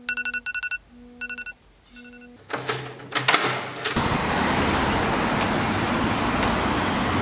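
A run of short electronic beeps from the racing quadcopter as it is powered up and armed, then a few clicks and a brief low hum, and from about four seconds in the steady rush of its Emax 2306 brushless motors and three-blade 5-inch propellers under throttle, heard from the onboard camera.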